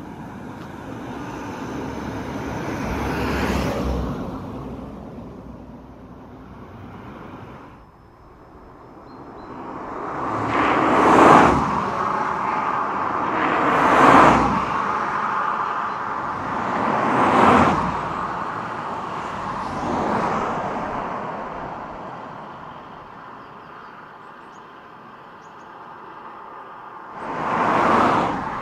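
Road traffic passing close by, several cars one after another about three seconds apart, each swelling up and fading away over a steady traffic hum.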